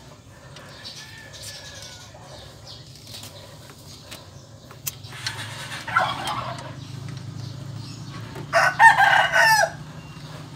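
A rooster crowing: one long crow of about a second near the end, after a fainter call about halfway through. A steady low hum runs underneath.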